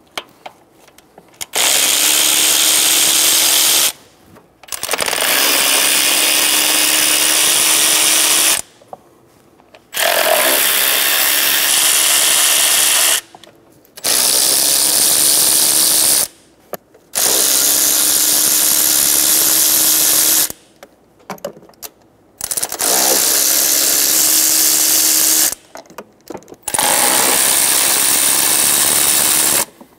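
A power tool with a 10 mm socket spins out the intake manifold bolts on a 5.3L V8, running in seven steady bursts of two to four seconds each. The bursts are split by short pauses as it moves from bolt to bolt.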